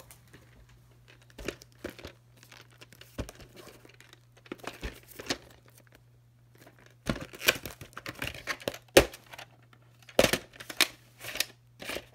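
Plastic clamshell VHS case and cassette being handled: scattered clicks, knocks and rustling, sparse at first and busiest in the last five seconds.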